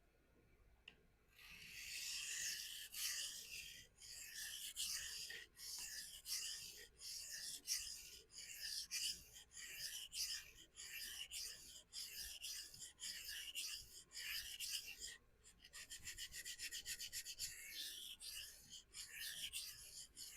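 Gerber Fastball's S30V steel blade being stroked freehand across a vitrified diamond sharpening stone to even out a lopsided edge bevel: gritty, high-pitched scraping strokes that start about a second in, at about one stroke a second, turning into quicker, shorter strokes about three-quarters of the way through.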